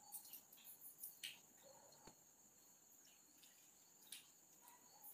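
Near silence with crickets chirping faintly and steadily in the night, and a single faint click about two seconds in.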